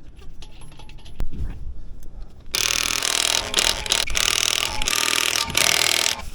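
Light handling clicks, then a cordless 1/2-inch impact wrench running loud in several bursts with short breaks, starting about two and a half seconds in and stopping just before the end.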